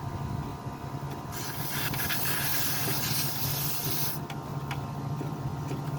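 Air hissing from a car tyre's valve stem for about three seconds as the portable air compressor's screw-on chuck is unscrewed, with a few small clicks, over a steady low hum.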